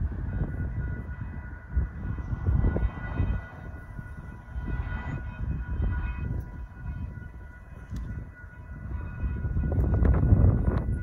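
Railroad crossing signal activating: the warning bells ring steadily as the gates lower, over a low uneven rumble that grows louder near the end.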